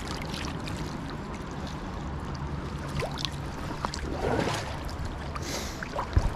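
Stream water running steadily, with brief splashes and knocks as a caught brown trout is released into it.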